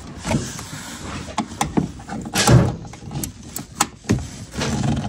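Irregular clicks, knocks and rattles of hand tools and fasteners being worked on a pickup's roof-mounted brake light assembly, with one louder clunk about halfway through.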